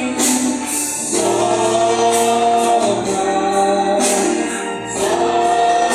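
A group singing a gospel worship song in Portuguese, with band accompaniment and long held notes.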